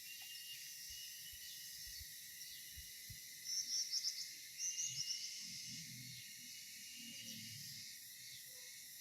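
Steady chorus of crickets and other insects, with a few faint knocks early on and a short spell of scuffing noise about three and a half to five seconds in.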